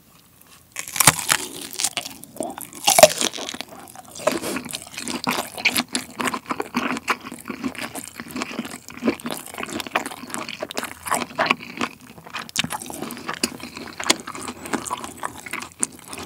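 Close-miked biting into a kielbasa sausage: two loud bites through the casing about one and three seconds in, the first of which, the eater says, sent the juice bursting out. Steady, wet chewing of the sausage follows.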